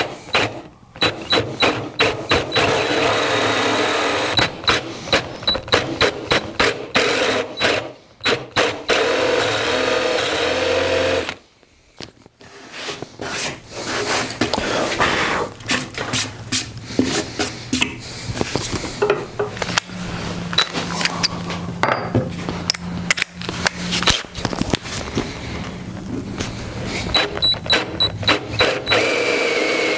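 Cordless drill boring into end-grain cherry with a Forstner bit, the motor starting and stopping in many short bursts. A brief near-silent gap about eleven seconds in.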